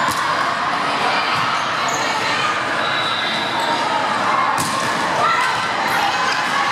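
Indoor volleyball in a large hall: a steady hubbub of player and spectator voices, with sharp smacks of the ball being hit, one right at the start and another about four and a half seconds in.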